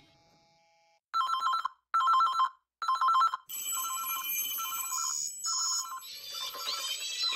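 A telephone ringing with a rapid electronic two-tone trill: three loud rings about a second apart, then further softer rings that keep repeating under background music.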